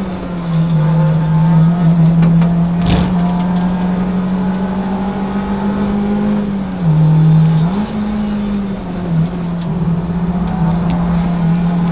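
Inside the cabin of a Toyota Vios race car, its four-cylinder engine running hard at steady high revs on track. The pitch drops briefly about seven seconds in, then comes back up. There is a single sharp click about three seconds in.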